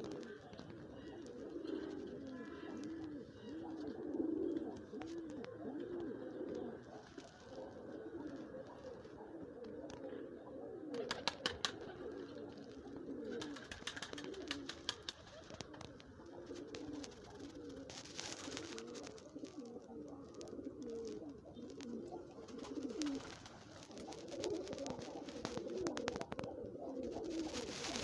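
Several turtle doves cooing over one another, the low calls repeating without pause. Bursts of rapid clicking come in around the middle and again near the end.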